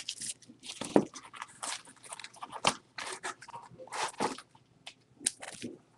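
Sleeved trading cards being handled in a cardboard box: irregular plastic rustles and small clicks, with brief pauses between them.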